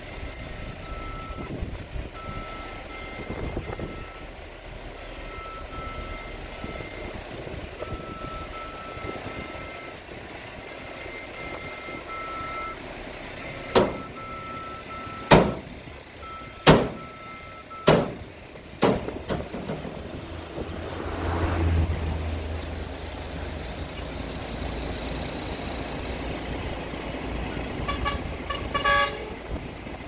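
Dump truck reversing with its warning beeper sounding in on-off beeps over the running diesel engine, then a run of five loud bangs as the raised bed tips its load of soil. The engine rises for a couple of seconds after the bangs.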